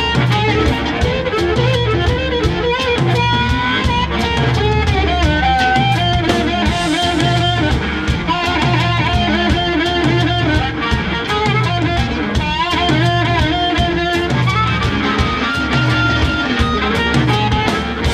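Live blues band playing an instrumental: amplified harmonica played into a handheld microphone takes the lead with held and bent notes, over electric guitar and a drum kit keeping a repeating groove.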